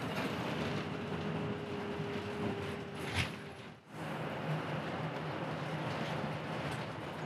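Inside a moving route bus: the steady run of the engine and road noise, with a low hum. A single sharp knock or rattle comes about three seconds in.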